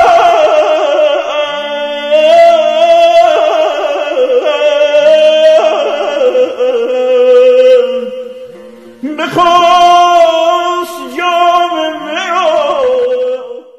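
Solo male voice singing Persian classical avaz in the Chahargah mode, long held notes with wavering ornaments, in the forud that brings the melody down from Hesar to the mode's home note. The voice tails off about eight seconds in, returns, and settles on a lower note near the end.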